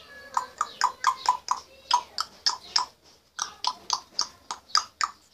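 African grey parrot making a fast series of sharp clicks, about four a second, in two runs with a short break in the middle.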